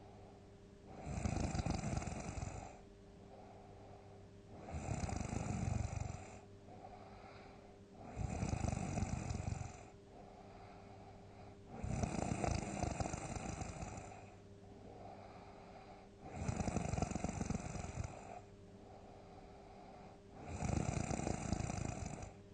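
A person snoring loudly in their sleep: six big snores, about one every four seconds, each lasting a second or two.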